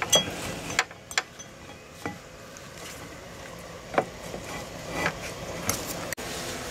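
Remanufactured brake caliper being fitted by hand over a rear brake rotor, knocking and clicking against the bracket and disc: a few scattered light metal clicks, the sharpest about four seconds in.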